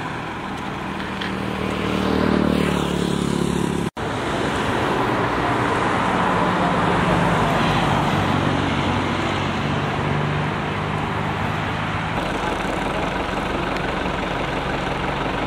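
Road traffic: a vehicle passes with its pitch falling over the first few seconds, then a steady rush of passing traffic, with a low engine hum joining near the end. The sound cuts out for an instant about four seconds in.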